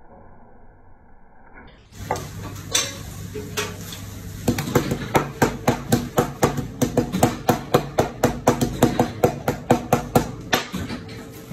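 Knife chopping raw beef on a plastic cutting board: a quick run of sharp strikes, about four a second, starting a few seconds in and stopping near the end.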